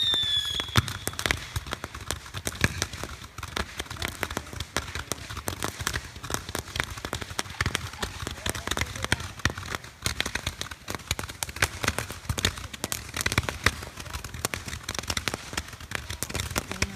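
Ground fireworks burning: a falling whistle dies away in the first second, then a dense, irregular crackle of many sharp pops in quick succession.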